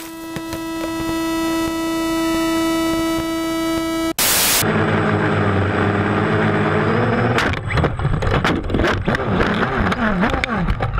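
A small drone's motors whining at a steady high pitch and growing louder. The sound cuts abruptly, and after a short burst of noise comes a lower mechanical drone, then a string of knocks and clatters.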